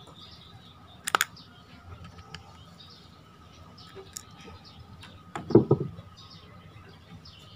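Screwdriver and metal parts of a spinning reel being handled while the rotor is taken apart: a sharp metallic click about a second in, a few small ticks, and a louder clatter of knocks about five and a half seconds in.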